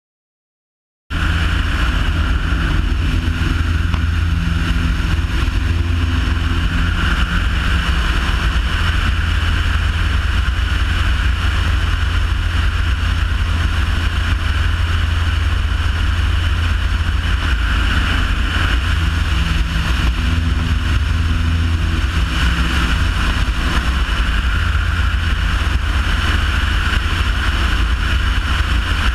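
Steady drone of a light propeller aircraft in flight, heard from a camera mounted outside on the wing, with wind rushing over the microphone. It starts abruptly about a second in and holds unchanged.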